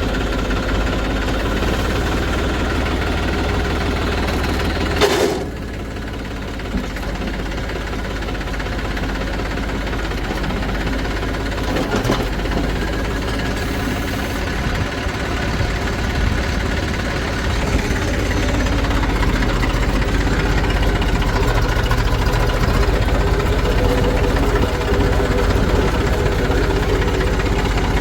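Diesel engine of a backhoe loader or tractor running steadily, with a sharp clank about five seconds in and a lighter one near twelve seconds.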